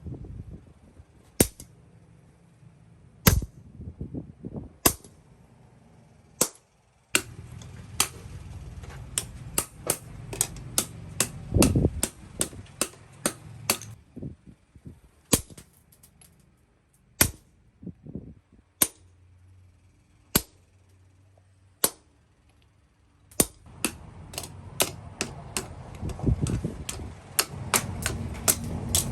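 Hand hammer striking steel on an anvil, each blow sharp and ringing: single blows a second or two apart at first, then runs of quick blows, about three a second.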